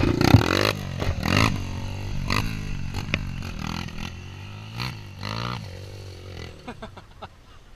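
Engine of a homemade off-road buggy revving up and down several times, with some clattering. It fades away over the last couple of seconds.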